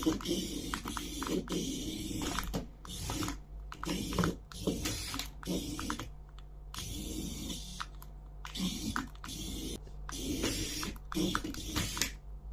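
Hands unboxing a plastic toy: rustling packaging with irregular clicks and rattles of plastic parts, in short bursts with brief pauses between.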